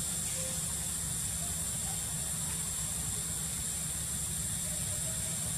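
Steady outdoor background noise: a low rumble under a constant high-pitched hiss, with no calls or sudden sounds.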